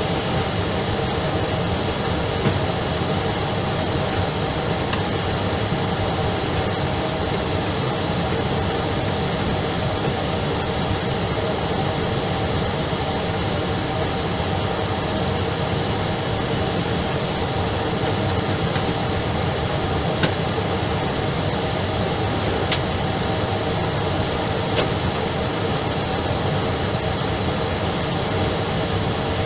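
Steady radio hiss and hum from an air-band receiver between air traffic control transmissions, with a few faint clicks.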